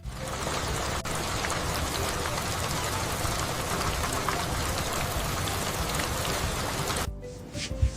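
Steady heavy rain falling, a dense even hiss of rain on surfaces. About seven seconds in it cuts off suddenly, and soft music with short plucked notes begins.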